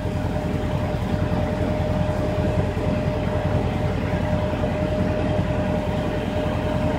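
An old carbureted car engine idling steadily, mixed with a 1920 TUEC central vacuum running as it pulls the exhaust through its single impeller. There is a dense low pulsing with one thin steady tone over it.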